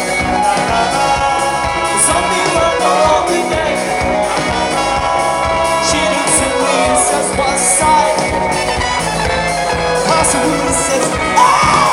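Live band playing with a singing voice, recorded from the audience at a concert, with some crowd noise.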